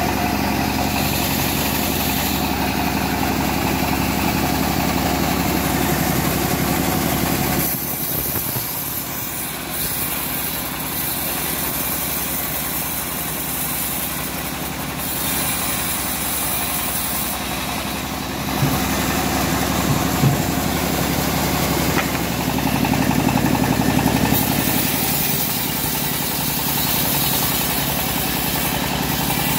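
Homemade engine-driven bandsaw mill running steadily as a short teak log is fed into its blade, with a couple of sharp knocks about two-thirds of the way through.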